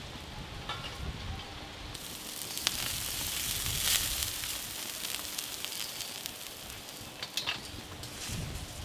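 Whole beef carcass roasting on a spit over a charcoal pit, sizzling with scattered crackles and pops. The hiss sets in about two seconds in, after a low wind rumble on the microphone.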